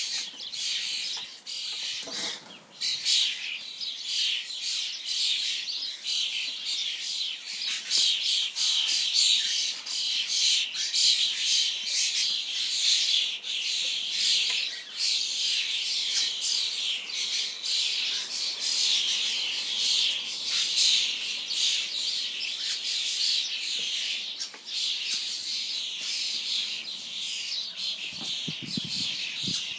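A flock of common starlings, many of them young birds just out of the nest, calling all at once: a dense, unbroken chorus of many overlapping short calls.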